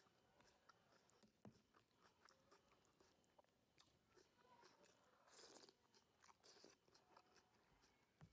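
Faint close-up chewing of a mouthful of rice and soup. Small clicks of a metal spoon against a plastic tub, with a louder burst a little past halfway.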